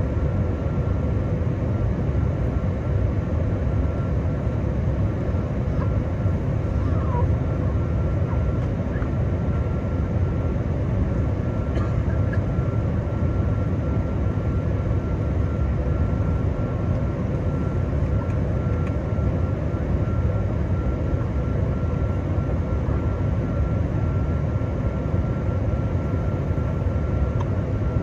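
Steady cabin noise inside a Boeing 777-200ER airliner in descent: the rush of airflow and the drone of its GE90 engines, heaviest in the low range, with a faint steady whine above it.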